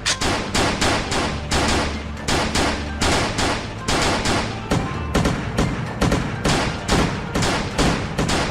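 Rapid gunfire sound effect, shots coming about three or four a second without a break, over a background music bed.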